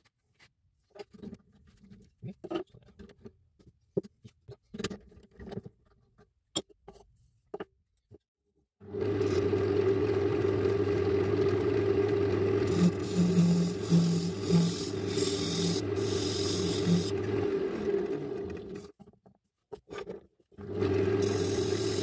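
First a few light knocks and handling clicks. Then, about a third of the way in, a wood lathe starts and runs with a steady hum while a tool or abrasive rubs and scrapes against the spinning paduk, with louder hissing strokes in the middle. The lathe stops briefly near the end and starts up again.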